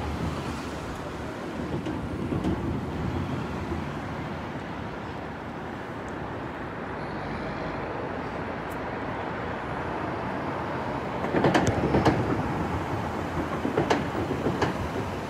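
Steady rumble of city street traffic, with a burst of sharp clattering knocks about eleven seconds in and a few more near the end.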